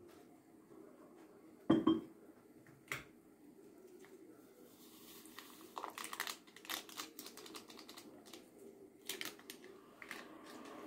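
Kitchen counter handling sounds: a sharp knock about two seconds in, then paper rustling and crinkling of a small sachet being opened and emptied into a porcelain cup, with clusters of light clicks and taps against the cup. A faint steady hum runs underneath.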